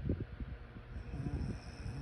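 A person snoring in their sleep: a low, fluttering rattle, with a breathy hiss of air joining it about a second in.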